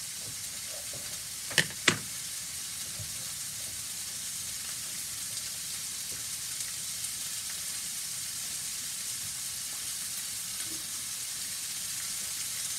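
Food sizzling steadily in a frying pan, a constant high hiss. Two sharp clicks sound about a second and a half in, a moment apart.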